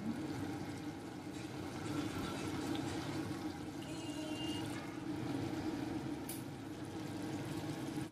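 Pork liver and tenderloin strips simmering in sauce in a wok, a steady low bubbling. A brief faint ring a little after four seconds as a glass lid is set on the pan.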